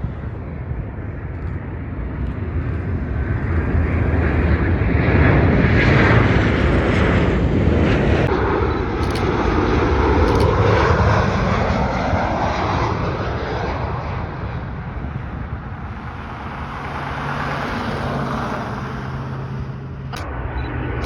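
Airliner flying past, its engine roar swelling to a peak about five seconds in and then slowly easing, its pitch sweeping downward as it goes by.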